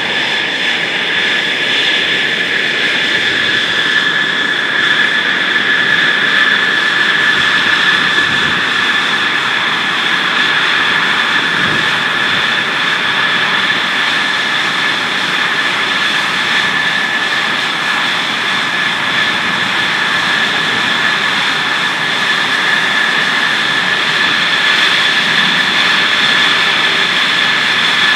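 F-16 fighter jet's turbofan engine running at low taxi power as the jet rolls slowly into the refueling pit: a steady, loud jet rush with a constant high-pitched whine.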